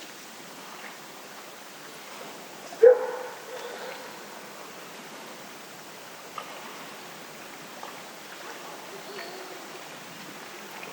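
A dog barks once about three seconds in, over a steady hiss of wind; a few faint clicks follow later.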